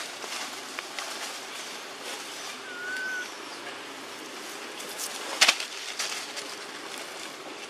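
Forest ambience with dry leaves rustling and crackling as macaques move over the leaf litter. A brief whistled note, slightly rising then level, sounds about three seconds in. A single sharp crack about five and a half seconds in is the loudest sound.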